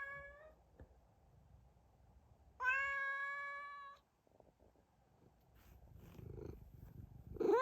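Domestic cat meowing: the end of one meow at the start, a long, level meow about three seconds in, and a loud one starting near the end.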